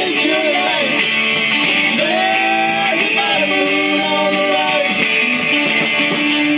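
Live band playing at a sound check: guitar with a sung vocal line over it, loud and continuous.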